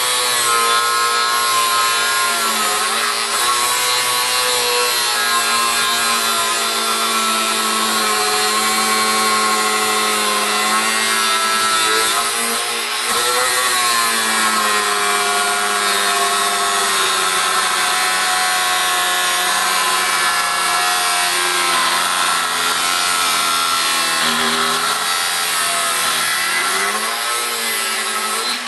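Angle grinder cutting into the metal case of a large capacitor, running steadily with a whine that sags in pitch now and then as the disc bites, and stops right at the end.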